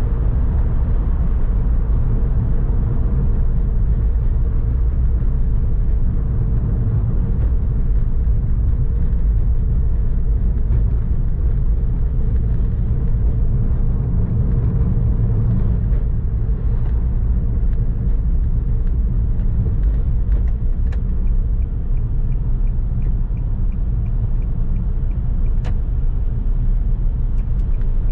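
A car driving, heard from a camera mounted on it: a steady low rumble of engine and tyres on the road. A faint regular ticking joins in the second half.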